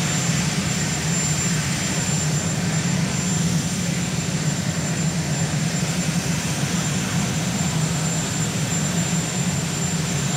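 Marine One, a Sikorsky VH-3D Sea King helicopter, running on the ground with its rotors turning. Its twin turbines and rotor make a steady, loud noise with a strong low hum that does not change.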